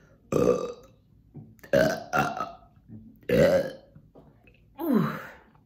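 A woman burping loudly several times in a row, about one burp every second and a half, the last one sliding down in pitch.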